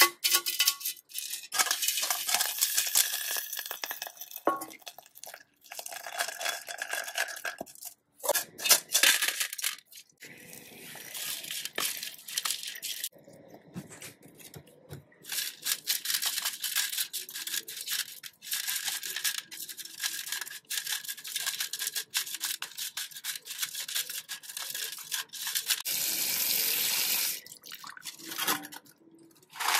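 Small rusty steel screws being scrubbed and washed in a metal tray: brush scrubbing, screws clinking against the tray, and water splashing. The sound comes in several stretches broken by short pauses.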